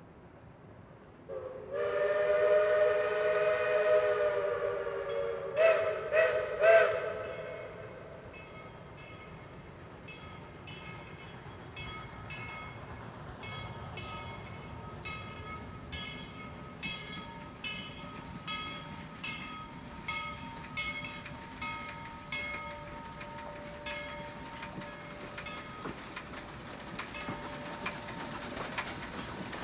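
Steam locomotive whistle: one long chime blast of several notes, then three quick toots. After that the locomotive's bell rings steadily, a little more than once a second, as the engine approaches.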